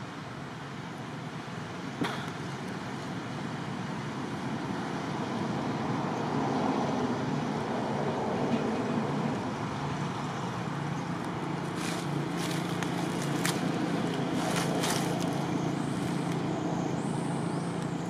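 Steady outdoor background noise, swelling slightly after the first few seconds, with a sharp click about two seconds in and a few faint clicks in the second half.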